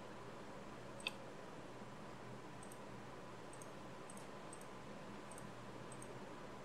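Computer mouse clicking: one sharper click about a second in, then a run of faint clicks spread over the next few seconds, over a faint steady hum and hiss.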